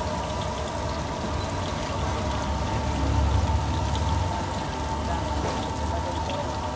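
Battered pieces deep-frying in a wide pan of hot oil: a steady crackling sizzle. A low rumble runs underneath, swelling briefly about halfway through.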